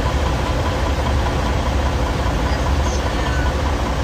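Semi-truck diesel engine idling: a steady low rumble.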